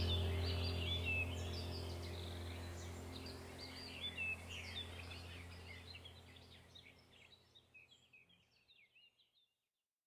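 Birds chirping and trilling over a low, sustained ambient-music drone, both fading out to silence about seven seconds in.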